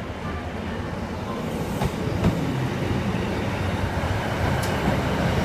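Class 156 Sprinter diesel multiple unit pulling into the platform, its Cummins diesel engine rumbling and growing louder as the cab passes close by. A few sharp clicks come through partway in, most clearly around two seconds in.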